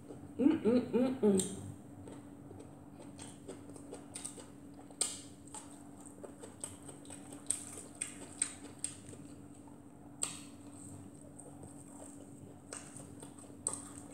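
Small, scattered clicks and taps of someone eating fried fish and festival by hand from a plate. A steady low hum runs underneath. A short wordless vocal sound comes in the first second and a half.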